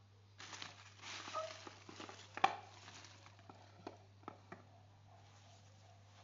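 Packaging being handled during an iPhone 12 unboxing: a rustle of crinkling wrap and cardboard for about two and a half seconds with one sharp click in the middle, then three lighter taps.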